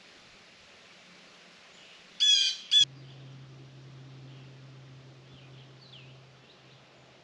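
A bird calling loudly twice about two seconds in, a longer call followed by a short one, with faint chirps of other birds a few seconds later. A low steady hum starts suddenly just after the calls and fades out after about four seconds.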